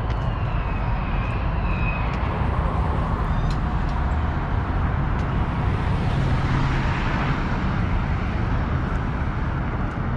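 A jet aircraft passing overhead: a steady rushing engine noise over a low rumble, swelling about six to seven seconds in.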